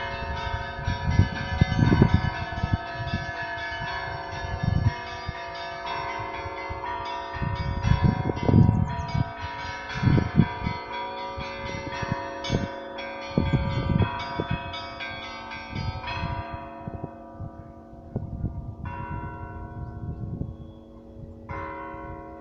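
Orthodox church bells being rung: repeated strikes over dense, sustained ringing. About sixteen seconds in, the ringing thins out to a couple of single strikes.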